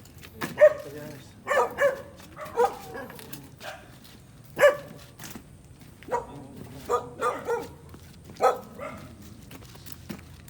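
A dog barking repeatedly, about a dozen short barks at uneven intervals, some in quick pairs.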